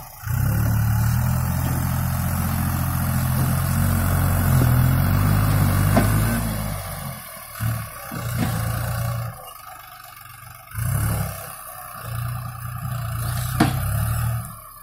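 New Holland TT4.55 tractor's diesel engine working under load while pushing a log. It runs strong and steady for about the first half, then drops away and comes back in several short spells, with a sharp click about a second before the end.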